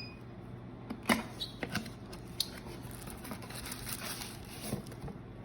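Packaging being handled as a small Bluetooth speaker is taken out of its box: scattered light clicks and knocks with rustling of cardboard and plastic.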